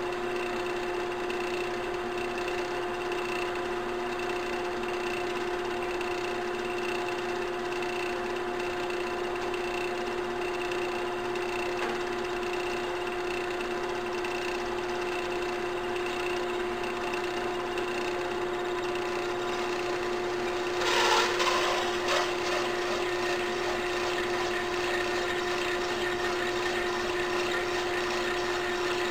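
Central Machinery benchtop metal lathe running steadily with a constant motor whine. About two-thirds of the way through, a brief louder scraping burst comes as a hand-held cutter touches the spinning brass.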